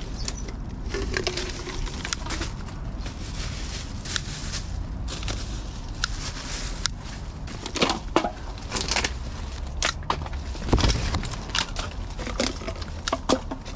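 Dry leaves, twigs and ivy crackling and rustling as a litter-picker grabber jabs and snaps at litter in the undergrowth, with many scattered clicks. A low thump comes near the end.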